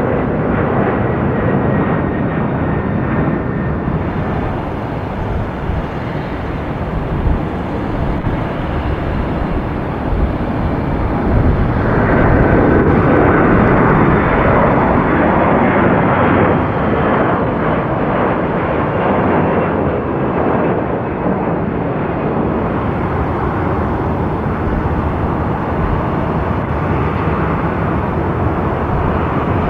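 Jet airliner engines at takeoff thrust: a Boeing 767-300 climbing away in the first few seconds, then an Airbus A321 on its takeoff run and liftoff, loudest in the middle, with a faint high whine slowly falling in pitch. Near the end a second Airbus A321 begins its takeoff roll.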